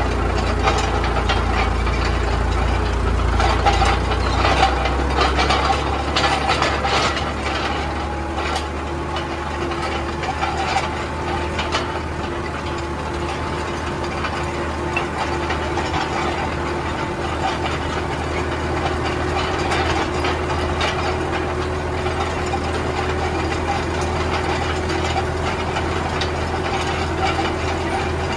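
Small tractor's diesel engine running steadily under load while pulling a land roller over tilled soil, with frequent rattles and knocks, busiest in the first half.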